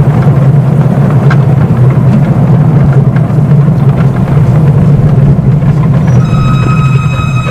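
Miniature steam locomotive working hard, heard close up from the footplate: a loud, steady rush of steam and running noise. About six seconds in, the engine's whistle gives one steady, high blast.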